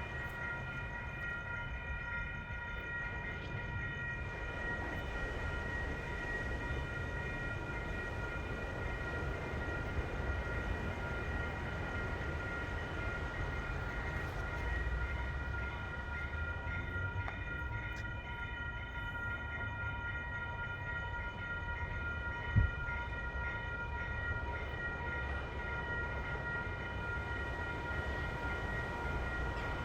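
Metrolink passenger train idling: a steady low engine rumble with a steady high-pitched whine of several tones held throughout, and a single thump about twenty seconds in.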